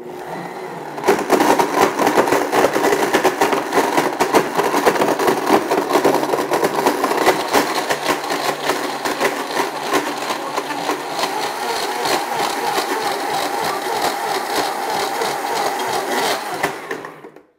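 Blendtec countertop blender motor running, its blades churning greens and liquid into a smoothie with a dense rattling whir. It starts a little quieter, steps up louder about a second in, runs steadily, and cuts off shortly before the end.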